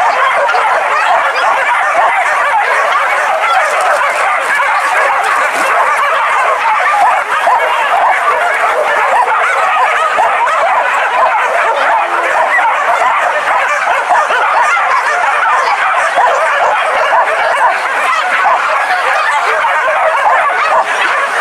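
A pack of hunting dogs barking and yelping together in a dense, unbroken chorus.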